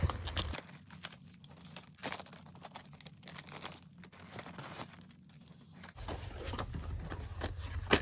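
Rustling and crinkling of card-backed die packages as they are shuffled and lifted by hand: a run of short, irregular rustles and clicks.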